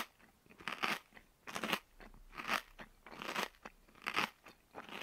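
A person chewing and biting food close to the microphone, a short crunching chew roughly every second.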